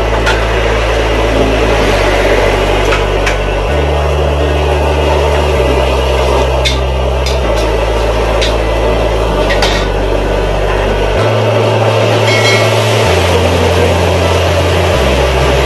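Stir-frying in a steel wok over a gas burner: steady burner noise and sizzling, with a metal wok ladle scraping and knocking against the pan several times. Near the end, liquid poured into the hot wok hisses as steam rises.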